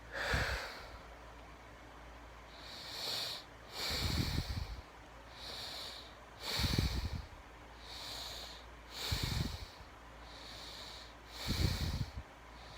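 A man breathing slowly and heavily close to the microphone: soft hissy breaths, with four stronger puffs of air hitting the microphone about every two and a half seconds.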